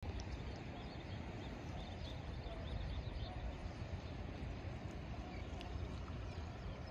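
Outdoor waterfront ambience: a steady low rumble of wind on the microphone, with faint high bird chirps now and then.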